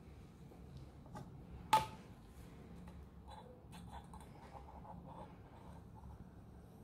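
Faint handling sounds of hands and a syringe at a small sheet-metal alcohol burner, with one sharp click a little under two seconds in and light ticks and rustles after it.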